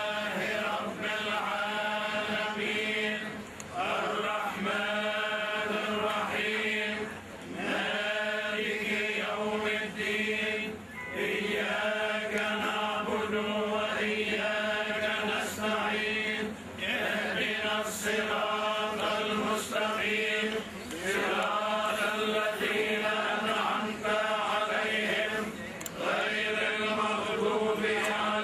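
Men's voices chanting a religious funeral recitation in long, drawn-out melodic phrases, broken by short pauses every few seconds.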